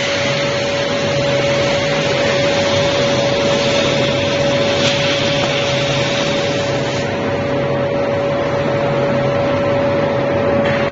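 Portable CNC cutting machine's torch cutting through steel plate: a loud, steady hiss of the cutting jet with a constant mid-pitched tone running through it.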